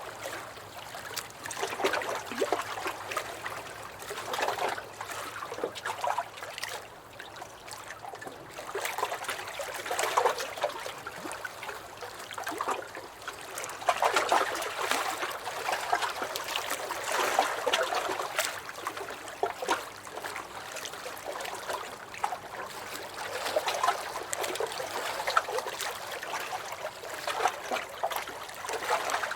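Small waves washing in and splashing, the water noise swelling and falling back every few seconds.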